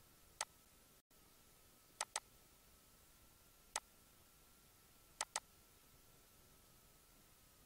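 Computer mouse button clicking six times, two of them in quick pairs, as points of a polyline are placed in CAD software. The clicks sit over a faint steady hiss and a thin high hum.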